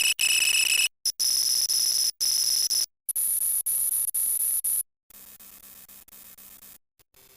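A string of short sound-effect clips spliced back to back, each about a second long with a short silent gap between them. The first four carry loud steady high tones, like an alarm or buzzer; the last two, from about five seconds in, are much quieter.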